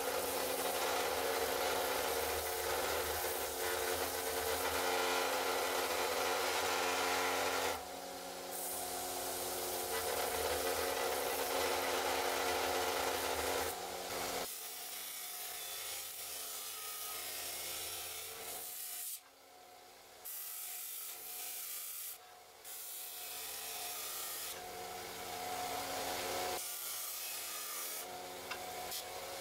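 Electric Scheppach bench sander running, with the rasping hiss of abrasive grinding hardened steel as a file blank is pressed against it: first a narrow sanding belt, then a sanding disc. The sound is louder and fuller for the first half, then steps down, with a few brief drops in the second half.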